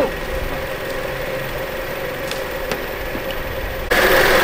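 Vehicle engine idling steadily under a constant mid-pitched hum, with a couple of faint clicks midway. Near the end a much louder rush of noise cuts in abruptly.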